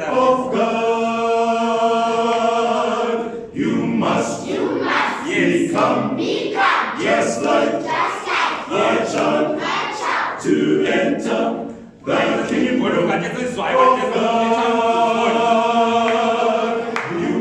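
A cappella choir singing in harmony. It holds long chords near the start and again near the end, with quicker rhythmic sung phrases between them.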